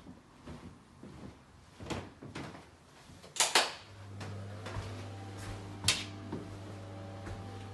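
Sharp clicks and knocks of doors and fittings being handled in a small room, loudest as a quick double click about halfway through and again near the end. Right after the double click a steady low electrical hum starts and keeps going.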